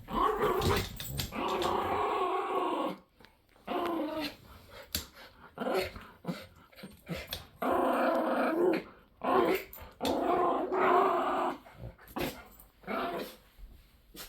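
Schnauzers growling over a squeaky dog toy, in repeated grumbling bouts of one to two seconds with brief pauses between them.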